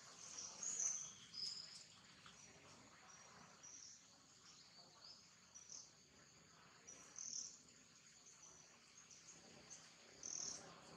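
Faint insect chirring, a steady high buzz, with short high chirps standing out from it a few times: about a second in, around seven seconds in, and near the end.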